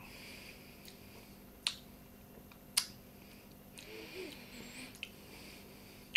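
A man's soft breathing through the nose with a few sharp mouth clicks, the two loudest about a second apart, as he savours a sip of whisky.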